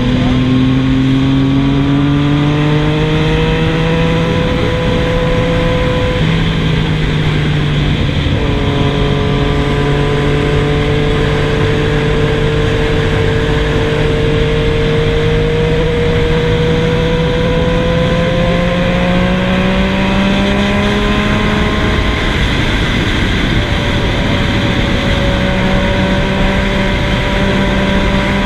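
Yamaha MT-09's inline three-cylinder engine running at sustained revs through a Scorpion GP720 stainless 3-into-1 full exhaust, its pitch slowly rising and easing back a few times, over a steady rush of noise.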